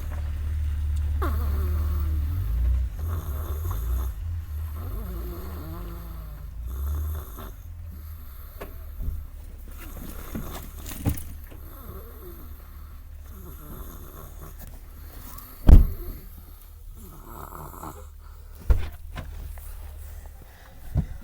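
A person snoring in sleep, a breathy snore every few seconds, with a low rumble over the first several seconds. Three sharp knocks cut in, the loudest about 16 seconds in.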